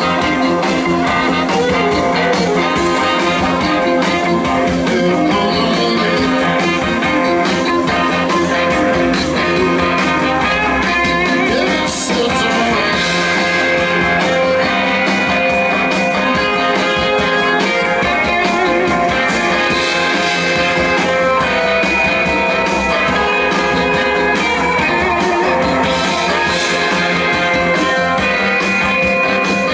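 Live blues-rock band playing a song at full volume, electric guitar to the fore.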